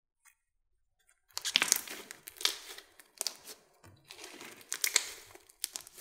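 Pink slime studded with foam beads being kneaded and stretched by hand, crackling and crunching in several bursts that begin about a second in.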